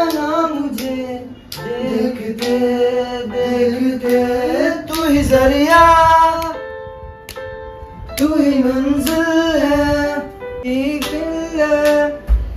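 A song playing: a singer's voice carrying a wavering melody over instrumental backing. The voice drops out for a moment about seven seconds in while the backing holds, then returns.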